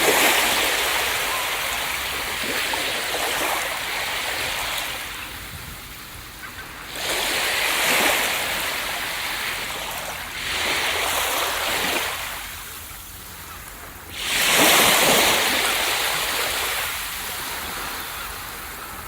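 Ocean waves breaking on a beach. The rush of surf swells and fades every few seconds, with the loudest wave crashing about three-quarters of the way through.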